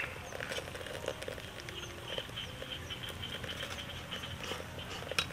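Light clinks and scrapes of a metal ladle and chopsticks against a metal hotpot, a few scattered taps, over faint high chirping in the background.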